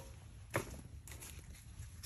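Scattered light clicks and knocks over a low rumble, with one sharper, louder knock about half a second in.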